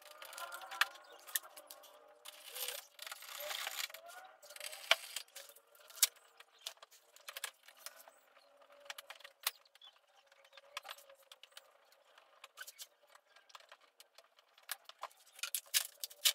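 Scattered metallic clinks, taps and rattles of fasteners and tools as the engine undershield is fitted back under the van, with a stretch of scraping about three seconds in.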